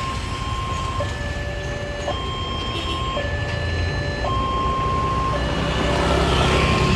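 Railway level-crossing warning siren sounding an alternating two-tone high-low wail, each tone held about a second, over the low rumble of rail vehicles that grows louder near the end.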